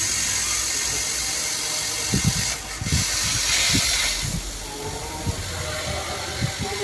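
Inverter fridge compressor running fast in test mode, a steady hissing run with a few short low thuds. It is running normally on its repaired inverter board.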